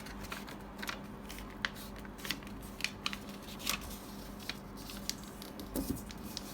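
A square sheet of origami paper being folded in half by hand, crackling and rustling in short irregular clicks as it is handled and creased, over a faint steady hum.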